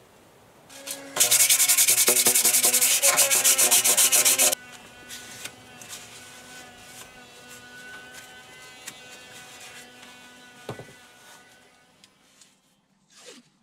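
Rapid hand rubbing on the flange of a stainless steel exhaust riser: a loud, fast scraping for about three seconds starting about a second in, with a faint ringing from the metal. After that the rubbing goes on more quietly and fades out near the end.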